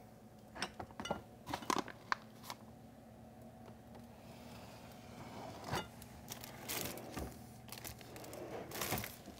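Scattered light clicks, knocks and rustles of kitchen items being moved about while someone rummages for an ingredient, in two bursts, one soon after the start and one in the second half.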